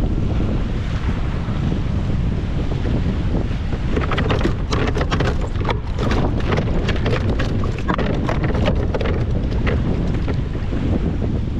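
Wind buffeting the microphone. From about four to nine seconds in comes a rapid run of sharp clicks and knocks as the catch and tackle are handled on the plastic kayak.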